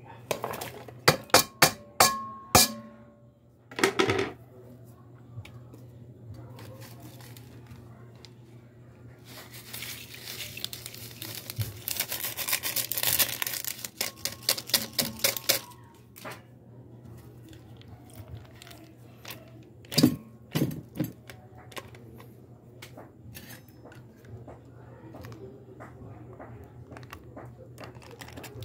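Ingredients being added to an aluminium cooking pot: sharp clinks with a brief metallic ring in the first few seconds and again about twenty seconds in. A long stretch in the middle is the crinkling and pattering of a plastic seasoning packet torn open and shaken out over the pot. A low steady hum runs underneath.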